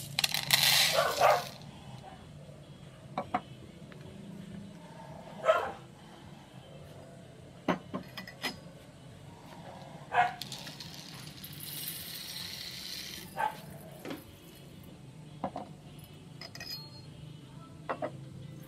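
Coffee beans poured from a cup into a plastic measuring jug: a loud rush for about a second and a half at the start. About ten seconds in, beans poured through a metal funnel into a roaster drum make a softer rush lasting about three seconds, with short knocks and clinks of handling in between.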